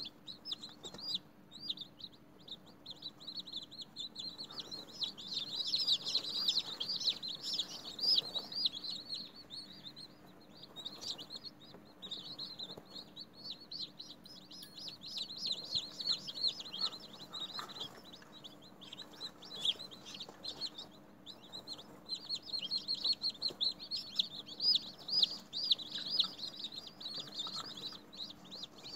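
Newly hatched chicken chicks peeping, many at once, a dense stream of short high-pitched chirps that swells and thins without stopping.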